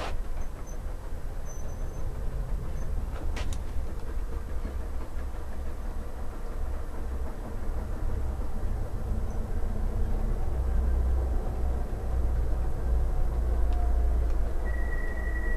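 A long train of garden-railway tank wagons rolling slowly backwards on track laid over a wooden shelf: a steady low rumble of wheels on rail, a little louder in the second half, with a thin high squeal near the end.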